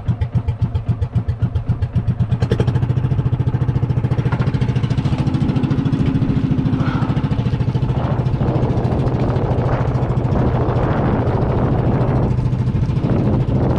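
A small motorised outrigger boat's engine, under way. It goes as slow, separate chugs at first, then picks up about two and a half seconds in to a steady, even run. A rushing hiss of water and wind builds over it later.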